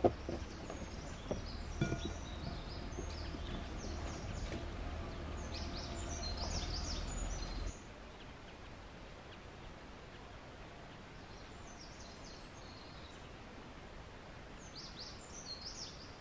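Small birds chirping over outdoor ambience. In the first couple of seconds there are a few sharp taps of a knife on a wooden cutting board under a low rumble, and the sound drops quieter about eight seconds in.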